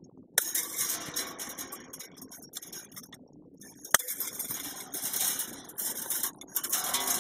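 Steel fence wire being handled and twisted with a small hand tool: metallic scraping and clinking, with a sharp click about half a second in and another about four seconds in.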